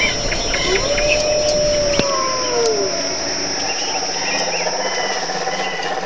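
Swamp ambience: a steady high insect trill with scattered bird chirps. About a second in comes one longer, lower call that drops in pitch at its end.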